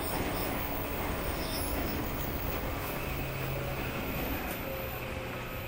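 Running sound inside a JR 115-series electric multiple unit motor car (MoHa 115-362): wheels on the rails and traction motor noise. A steady low hum comes in about halfway through, and the sound eases off slightly near the end.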